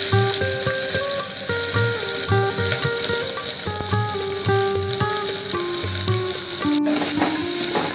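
Freshly added sliced onions sizzling steadily as they fry in hot oil with fennel seeds and green chillies.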